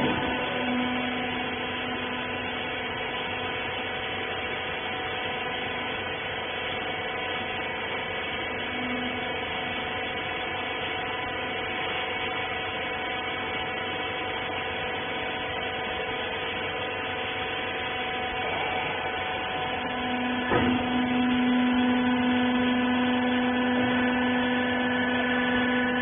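Hydraulic power unit of a wiper horizontal bagging baler running with a steady whine. A clunk sounds about twenty seconds in, and after it the whine grows louder with a stronger low note.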